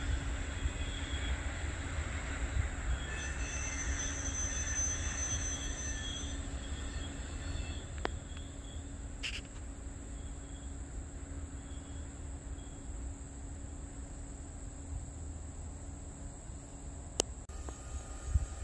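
Freight train cars rolling along the rails, a steady low rumble that slowly fades, with thin high wheel squeals a few seconds in and a few sharp clicks.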